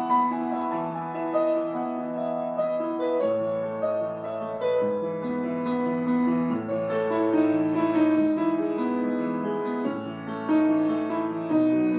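Solo piano playing a slow, flowing new-age piece: held bass notes that change every few seconds under a ringing melody and broken chords.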